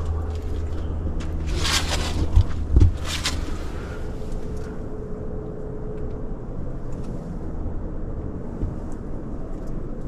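Footsteps crunching on leaf litter and stony ground, two crunches about two and three seconds in with a couple of low thumps between them, over a steady low rumble.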